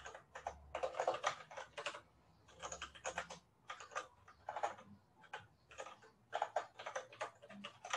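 Typing on a computer keyboard: quick runs of keystrokes, with short pauses about two seconds in and again a little after five seconds.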